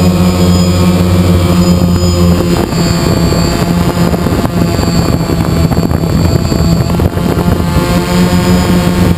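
DJI Phantom quadcopter's motors and propellers humming steadily, picked up by the GoPro carried on the drone. From about two and a half to seven and a half seconds in, the hum turns rough and uneven, then steadies again.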